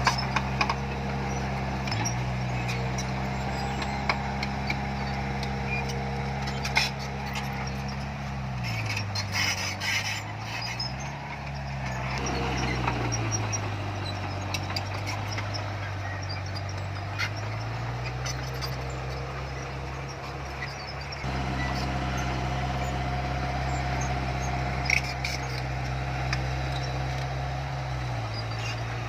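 Heavy diesel engine of earthmoving machinery running, its pitch dropping a third of the way in, rising briefly, then settling lower for several seconds before climbing back. Scattered metallic clanks and knocks come through, most of them around the middle.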